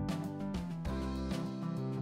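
Background music: pitched instruments over a steady beat.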